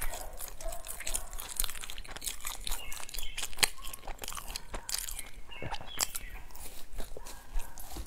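A person biting into and chewing a crumbly baked pastry, with many small, irregular crunches.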